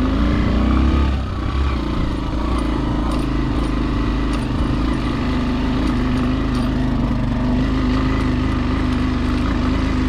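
Small motorcycle engine running under way on a rough dirt track. Its note rises briefly at the start and dips about a second in, then holds steady.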